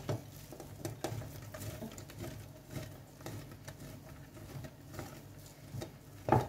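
Block of hard cheese rubbed on the coarse side of a stainless-steel box grater: a soft rasping scrape with each stroke, roughly two strokes a second. A sharper knock comes just before the end.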